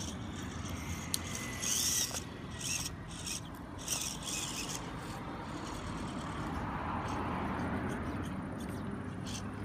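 Small electric RC rock crawler working up a rock face: the motor and drivetrain whirring, with the rubber tires scraping and scrabbling on the granite in several short bursts in the first half. A passing car swells up in the second half.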